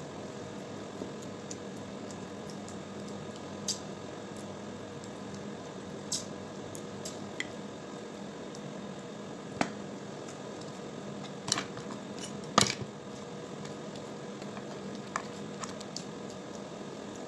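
Cooked crab being picked apart by hand: scattered sharp cracks and clicks of shell breaking and meat being pulled out, the loudest a pair of cracks about two-thirds of the way through. A steady electrical hum runs underneath.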